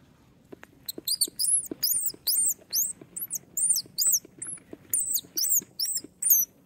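A squirrel squeaking: a quick run of loud, high-pitched squeaks that rise and fall in pitch, starting about a second in and going on for about five seconds, with scattered clicks among them.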